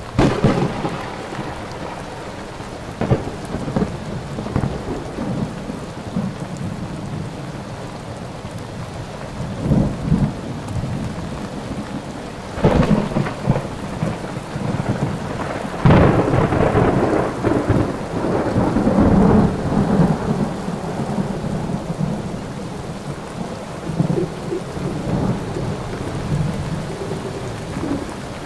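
Thunderstorm sound effect: steady rain with rolls of thunder, the biggest right at the start and about 13, 16 and 19 seconds in.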